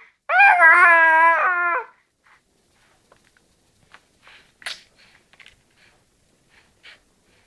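Young infant crying: one long wailing cry of about a second and a half, then the crying stops. After it come only faint short clicks and smacks from the baby's mouth on the pacifier.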